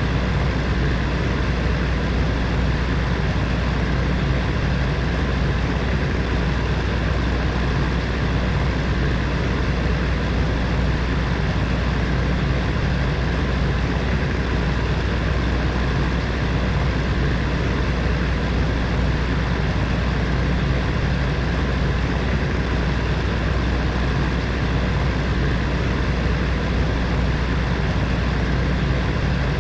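Heater fan running steadily: an even rushing air noise over a strong, constant low hum, unchanging throughout.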